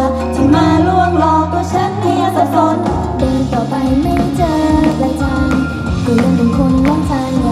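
Pop song with female group vocals, playing over a steady beat and bass through the stage PA.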